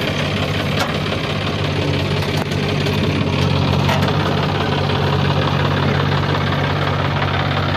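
Diesel engines idling steadily: a John Deere tractor close by, with a JCB 3DX backhoe loader running behind it.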